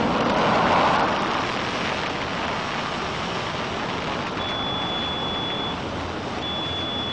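Concorde's four reheated Olympus 593 turbojets at takeoff power, a steady roar as the aircraft rolls down the runway, loudest in the first second. A thin high steady tone comes and goes in the second half.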